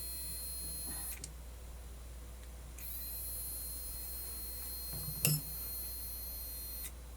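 High-pitched electrical whine from the powered-up, opened Luxman KX-101 cassette deck. It cuts off about a second in, starts again near three seconds and stops shortly before the end, over a steady low mains hum. A sharp click about five seconds in is the loudest sound.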